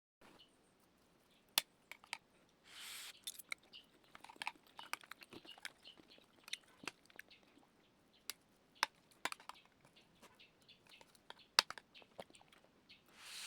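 A person eating: chewing and crunching, with many scattered sharp clicks and two short bursts of noise, about three seconds in and near the end.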